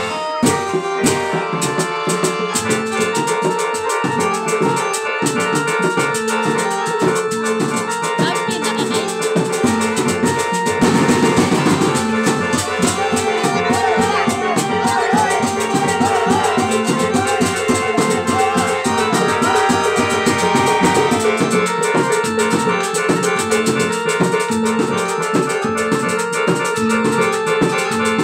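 Obrog street music: a loud band of drums with a steady beat, under a sustained melodic accompaniment. A wavering melody line comes in over it for several seconds about halfway through.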